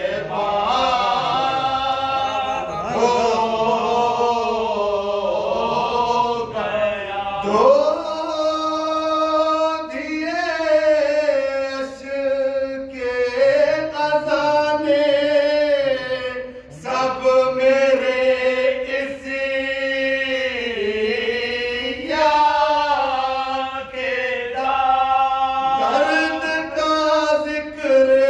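Unaccompanied male voices chanting Urdu devotional verse. A lead singer at a microphone is joined by two men beside him, in long held notes that glide up and down.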